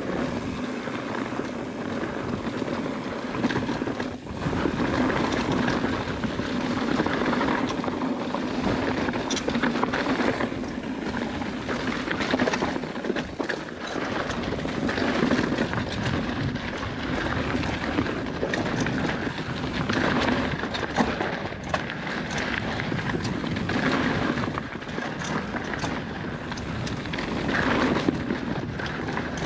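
Mountain bike ridden fast down a rocky dirt singletrack, heard from a camera mounted on the bike: tyres rolling and crunching over dirt and stones, with the bike rattling and knocking over bumps and wind rushing over the microphone.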